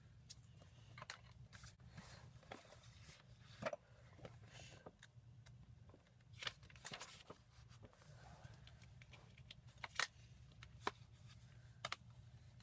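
Faint pencil scratches on paper and paper handling, scattered short scratchy strokes and a few sharper clicks, over a steady low hum.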